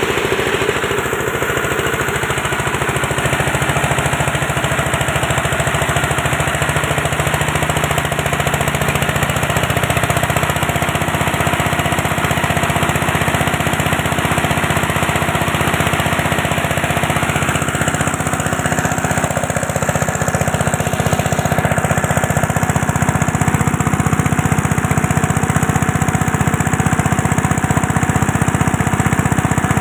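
Single-cylinder 8.5 hp diesel engine running steadily, driving a multi-purpose chopper and grinder mill.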